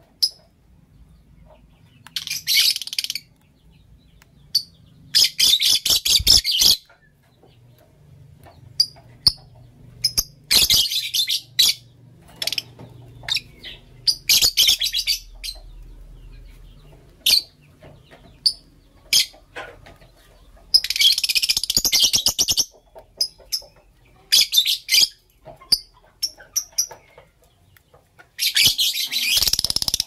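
Blue lovebirds chattering: five bursts of rapid, high-pitched chirping, each a second or two long, with single short chirps scattered between them.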